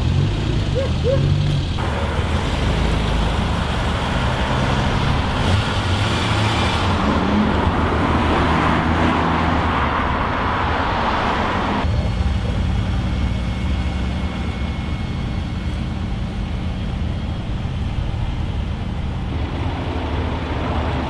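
Car engines running steadily at low revs. A louder rush of engine and road noise builds about two seconds in and cuts off suddenly a little past halfway.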